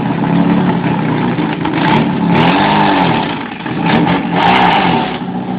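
Fiat 147's four-cylinder engine revved hard, its pitch rising and falling twice, about two and a half and four and a half seconds in, as the car is driven in spins.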